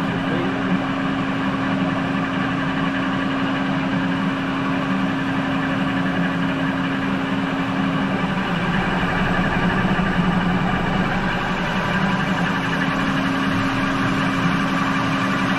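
Manual lathe running steadily, its spindle turning a bell housing during a facing pass. The hum holds a steady tone that drops out for a few seconds midway, then returns.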